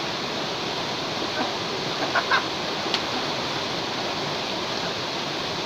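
Steady rush of a waterfall, with two short calls about two seconds in and a sharp click just after.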